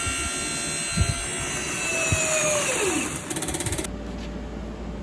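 Motor-driven chip compactor machine running with a steady whine and a few heavy knocks. Its whine falls in pitch about two and a half seconds in, and the machine noise cuts out shortly after, leaving a low hum.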